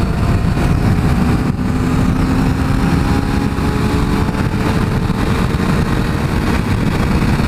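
Kawasaki sport bike's engine pulling under throttle, its pitch rising slowly as the bike gains speed, under a heavy rush of wind on the microphone.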